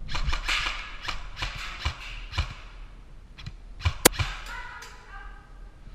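Airsoft replicas firing a rapid string of sharp single shots, several a second, with BBs smacking into surfaces. A few more shots follow, the loudest and sharpest about four seconds in.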